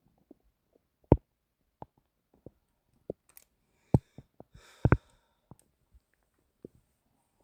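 Stomach gurgling: irregular short pops, the loudest about a second in and around four to five seconds, with a brief rustle near five seconds.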